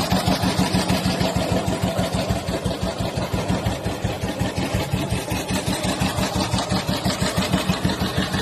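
Ariel Twinport 500 single-cylinder motorcycle engine idling with an even, steady beat of about four pulses a second.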